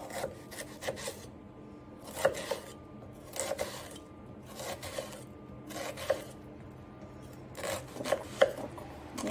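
Kitchen knife slicing an onion on a wooden cutting board: short runs of crisp cuts, each ending in a knock of the blade on the board, coming about every second.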